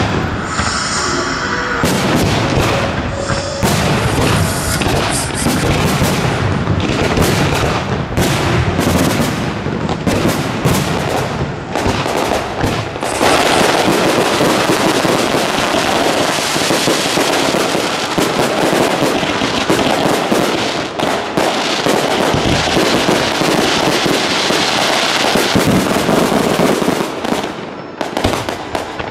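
Aerial fireworks display: rapid bangs and pops of shells going off from about two seconds in, thickening into a dense, continuous crackle from about thirteen seconds in.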